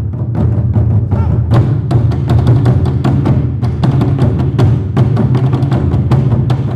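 Ensemble of nagado taiko drums on wooden stands struck with wooden bachi sticks, playing a fast, continuous rhythm of dense, deep drum strokes.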